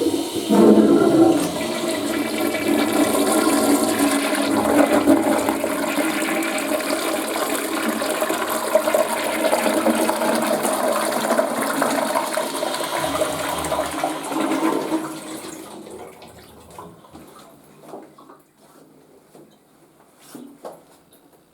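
Western-style toilet flushing: a loud rush of water starts at once and holds steady for about fifteen seconds, then dies away into faint trickles and drips.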